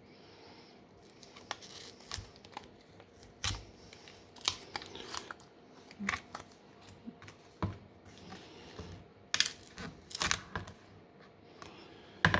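A smartphone's plastic back cover being pried and peeled off by hand: irregular sharp clicks and snaps with short tearing, scraping sounds.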